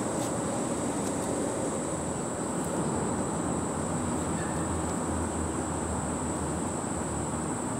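Steady outdoor ambience: a constant high-pitched insect drone over an even hiss and a low rumble that grows a little louder past the middle.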